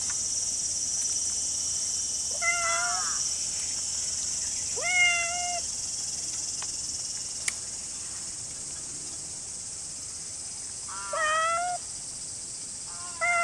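A cat meowing four times, each meow short, under a second, with the last near the end. A steady high-pitched insect drone runs underneath.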